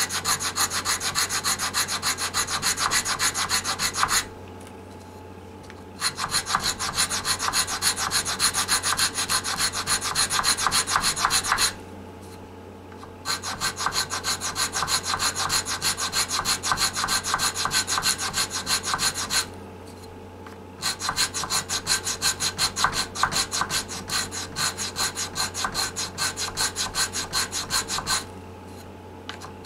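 80-grit sandpaper on a flat Lexan block rubbed rapidly back and forth across the wooden heel of a guitar neck, a dry rasping scrape. It comes in four long runs of strokes with short pauses between. The heel is being sanded down for a neck reset.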